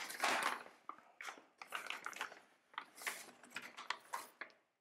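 Plastic foil protein-powder bag crinkling and rustling in irregular bursts as it is pulled open at the top.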